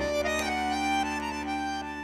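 Music: the instrumental tail of an Uzbek folk song, a melody over a held drone. The bass drops out at the start and the music starts to fade towards the end.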